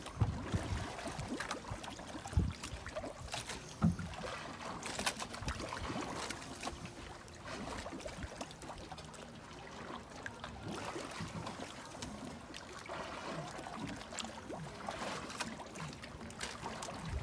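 Water sloshing and splashing around a scuba diver floating at the surface beside a boat, with a few sharper splashes in the first few seconds.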